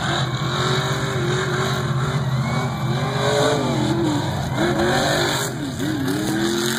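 Mega truck's engine revving hard as it races over the dirt course, its pitch rising and falling again and again as the throttle is worked, over a steady low hum.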